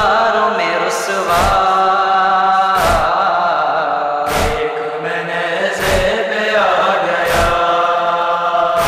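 Wordless chorus of male voices chanting in held, slowly bending notes, the backing of a noha lament, with a sharp slap of matam (rhythmic chest-beating) about every one and a half seconds.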